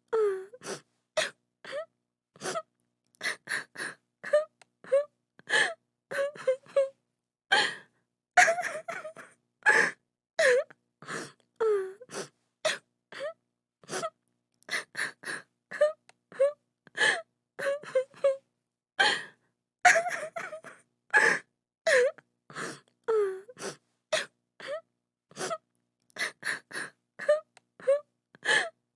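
A woman crying: a long run of short sobs and sharp gasping breaths, some of the sobs wailing and falling in pitch, with brief silences between them.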